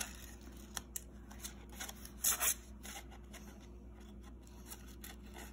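Scissors cutting paper: a series of short, quiet snips, the loudest pair about two seconds in.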